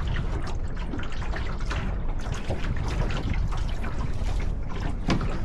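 Water splashing and gurgling along the hull of a Flying Scot sailing dinghy under way, in uneven little splashes over a steady low rumble of wind on the microphone.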